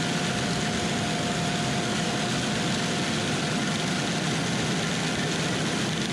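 Heavy harvest machinery running steadily, a combine or tractor engine with its drivetrain, plus a thin high whine that fades out partway through.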